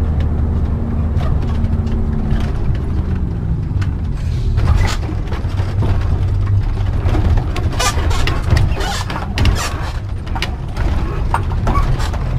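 Motorhome engine and road noise inside the cab, the engine note dropping about two and a half seconds in as the vehicle slows. From about four seconds on, many short clatters and knocks ride over the engine hum.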